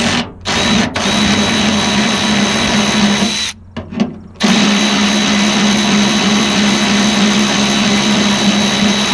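Electric drill/driver running steadily, triggered in a few short bursts, then a run of about two and a half seconds, a pause, and a run of nearly five seconds. It is turning out a truck bolt that is stripping.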